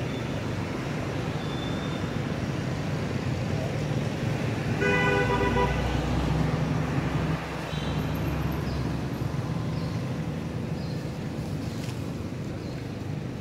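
Steady road traffic rumble with a vehicle horn tooting once, briefly, about five seconds in. A passing vehicle's low rumble swells for a couple of seconds right after the toot.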